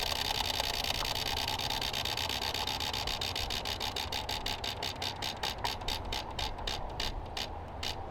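Spinning prize wheel, its flapper clicking against the pegs: rapid ticks that slow steadily as the wheel winds down, the last few about a third of a second apart.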